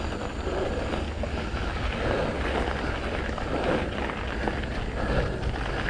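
Wind buffeting the microphone on a moving mountain bike on a trail: a steady rushing noise with a heavy low rumble.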